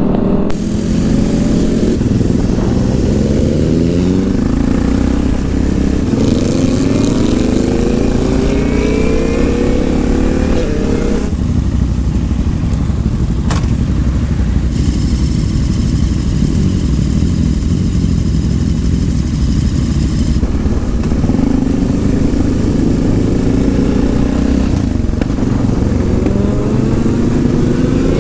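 2004 Yamaha XT660R's single-cylinder four-stroke engine through a LeoVince exhaust, accelerating hard with revs rising and dropping at each gear change. It then runs at steadier revs, with a single sharp click about halfway, before pulling up through the revs again near the end.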